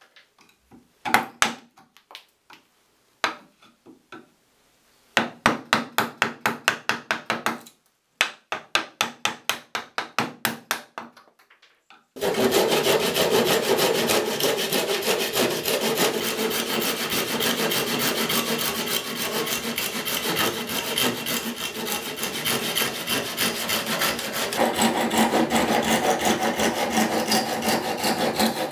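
Japanese pull saw cutting wood. A few scattered taps come first, then short, quick strokes starting the cut. A little before halfway the saw settles into fast, continuous sawing.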